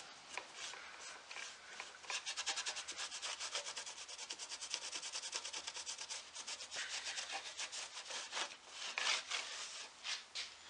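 A cloth pad rubbed briskly back and forth over carved oak, working dark wax into the carvings and wiping it off the high spots. The strokes come quick and even, about six a second, for several seconds, then slow to a few separate wipes near the end.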